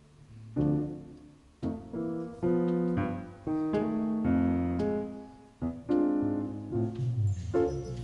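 Jazz piano playing a slow ballad passage: chords struck one after another at an unhurried, free pace, each left to ring and fade.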